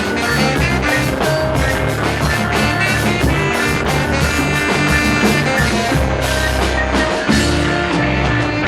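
A reggae band plays an instrumental passage, with drum hits and sustained bass notes under guitar.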